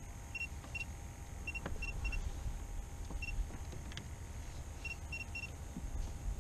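Short, high electronic beeps of one steady pitch, about nine in all, some single and some in quick pairs and triples, over a low steady rumble.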